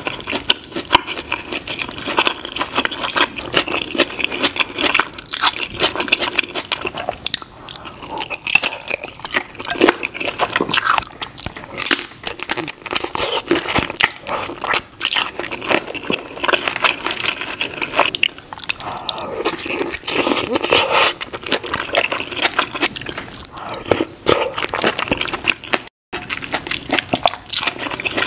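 Close-miked chewing and biting of shrimp and crab meat in a thick sauce: a steady stream of wet mouth sounds, smacks and crackles. The sound drops out for a moment near the end.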